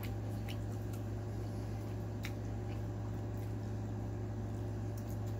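A plastic fork twirling and scooping chow mein noodles on a plate, with a few faint clicks and soft squishes, and a forkful of noodles taken into the mouth near the end. A steady low hum runs underneath.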